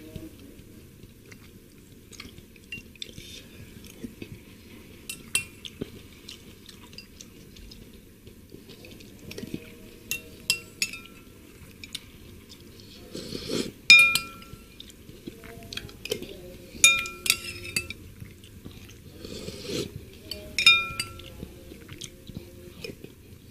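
Metal spoon clinking and scraping against a ceramic bowl as spicy seblak broth is scooped up, with a few sharp ringing clinks in the second half. Between the clinks come short sips and slurps of the broth from the spoon.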